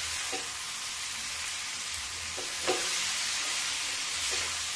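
Cabbage and potato sabzi sizzling in a non-stick pan over the flame while a wooden spatula stirs it, with a few short scrapes, the loudest about two and a half seconds in.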